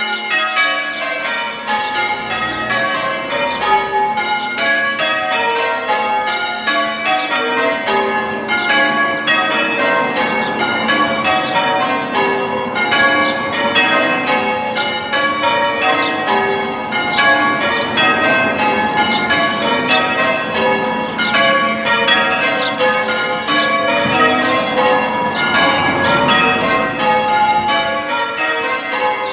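A ring of six church bells rung in changes: a steady, even stream of bell strikes, one bell after another in rounds-like rhythm.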